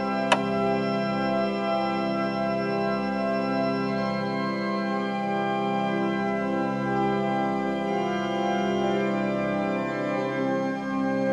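Organ music: slow, sustained chords held for several seconds each before changing. A single sharp click sounds just after the start.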